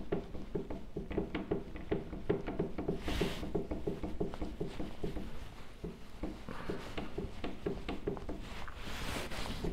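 Soft cloth rubbing back and forth over a subwoofer's glossy piano-black plastic top, buffing off dried Brasso polish: a quick rhythmic rubbing with louder hissing swishes about three seconds in and again near the end.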